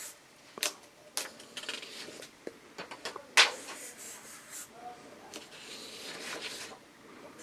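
Felt-tip marker drawing across paper: scratchy rubbing strokes, with several sharp taps, the loudest about three and a half seconds in.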